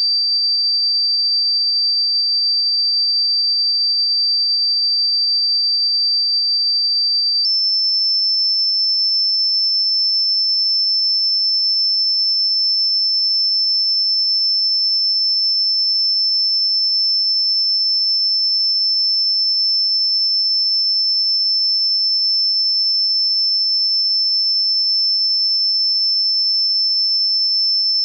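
A single high-pitched electronic sine tone, pure and steady, that steps up abruptly to a slightly higher pitch about seven seconds in and then holds.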